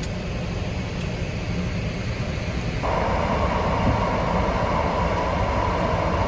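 Steady low rumbling noise, with a steady higher hum cutting in suddenly about three seconds in and holding.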